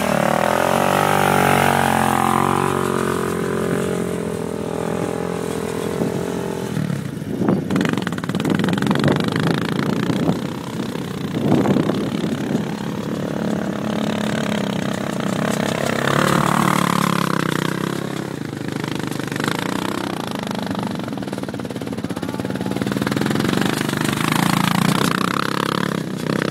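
Honda sport ATV engine revving as the quad pulls away. Its pitch then rises and falls repeatedly as it rides loops across sand, with strong revs about two-thirds of the way in and again near the end.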